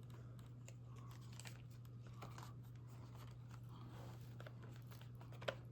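Faint handling noises of small items and packaging being unpacked: light crinkling and scattered small clicks over a steady low hum, with one sharper click near the end.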